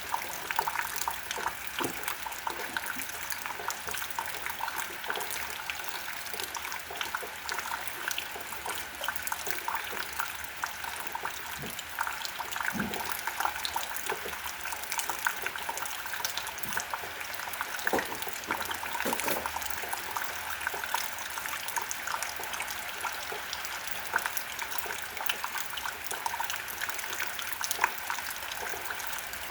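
Steady rain: a dense, even patter of drops with trickling water, and now and then a heavier drip.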